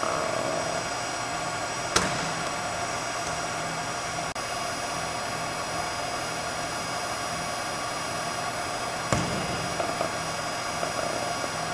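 Steady hiss and hum of an indoor arena's ventilation, broken twice by the sharp thud of a football, about two seconds in and about nine seconds in.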